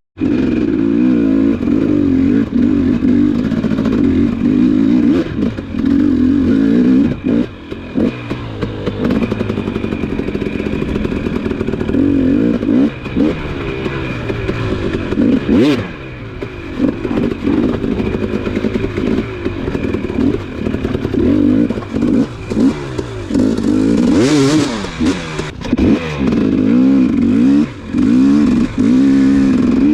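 Dirt bike engine revving up and down continuously as it is ridden over rough ground, with clattering from the bike.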